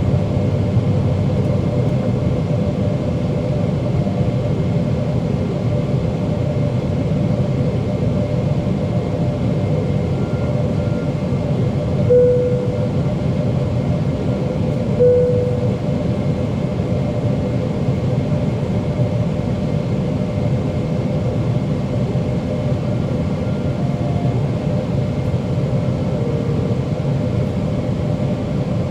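Steady cabin roar of a Boeing 777-300ER in flight, with the hum of its GE90 engines. Twice, about three seconds apart midway, a short louder tone rises out of it.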